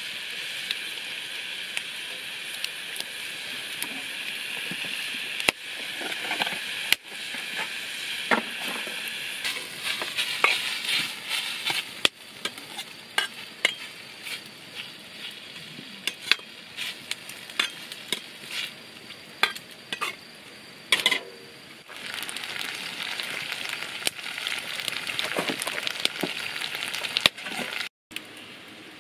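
Pork and vegetables sizzling in a wok over a wood fire while being stir-fried, with a steady frying hiss and a spatula repeatedly scraping and clicking against the pan.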